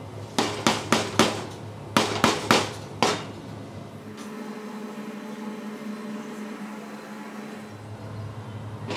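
A metal spatula tapped against the rim of a large aluminium cooking pot: eight sharp taps in two quick groups of four within the first three seconds, then only a steady kitchen hum.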